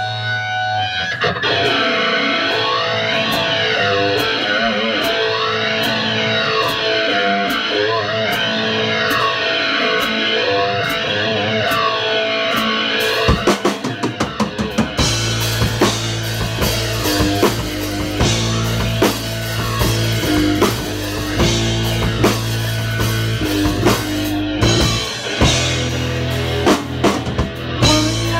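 Live rock band playing its opening song: electric guitar chords with a sweeping effect that rises and falls about every two seconds, then a drum fill about 13 seconds in and the full band comes in with drums and bass guitar.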